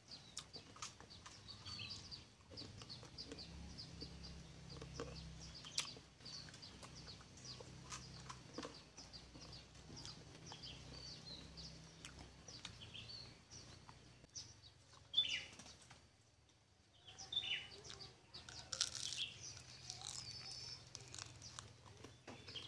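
Small birds chirping repeatedly, short high calls with some downward-sweeping notes, along with a few faint clicks.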